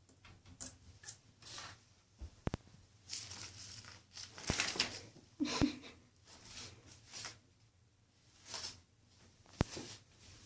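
A sticky lint-roller sheet crinkling and rustling in irregular bursts as a cat moves with it stuck to its fur, with a few sharp clicks between them.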